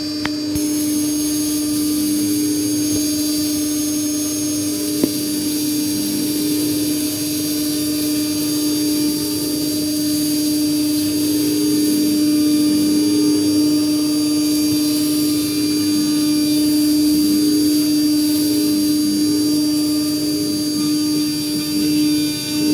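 CNC milling spindle turning a 2 mm four-flute end mill at 18,000 rpm, cutting bronze at a steady feed: a constant steady tone with a fine cutting hiss over it. A single click about five seconds in.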